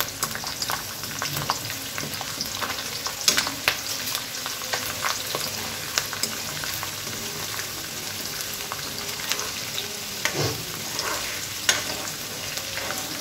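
Garlic sizzling in hot oil in a metal kadai, stirred with a metal ladle that scrapes and clicks against the pan. There is a steady hiss of frying, with a few louder ladle knocks about three seconds in and again near the end.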